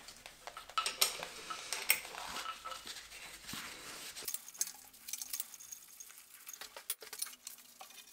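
Irregular metallic clinks and light knocks of hand tools and small metal engine parts being handled while a diesel engine is taken apart.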